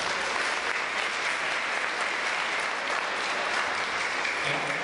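Audience clapping in steady, sustained applause.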